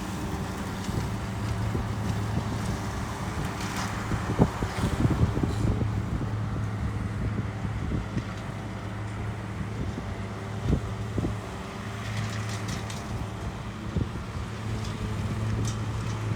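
Steady low engine hum with wind buffeting the microphone, giving scattered thumps.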